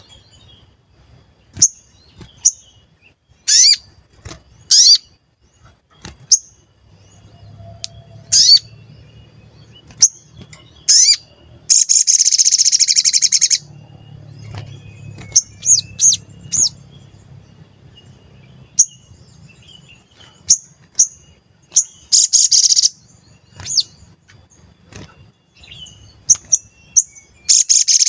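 Sogon bird calling with sharp 'cuit cuit' chirps, each a quick downward sweep in pitch, given singly or in pairs at irregular intervals. Between them come three longer, harsh rattling bursts of about a second or more: one about 12 s in, one about 22 s in and one near the end.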